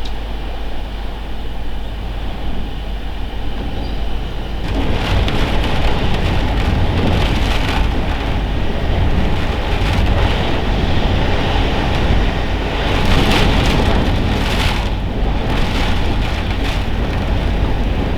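Storm-force wind gusting, with a heavy low rumble of wind buffeting the microphone; the gusts strengthen about five seconds in, with loud hissing rushes near the middle.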